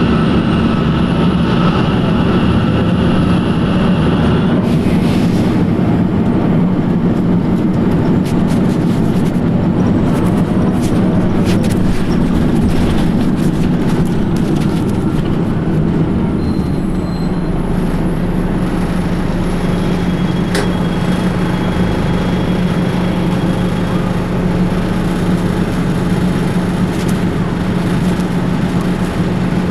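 2004 New Flyer D60HF articulated bus, its Detroit Diesel Series 50 EGR diesel running with a steady drone. A high belt squeal is heard for the first four seconds or so. Then come many rattles and knocks until about halfway, and after that the engine settles into a steadier low tone.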